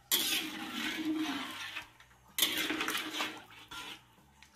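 Spatula stirring thin coconut-milk curry sauce in a wok, sloshing and scraping the pan in two long strokes with a short pause between them.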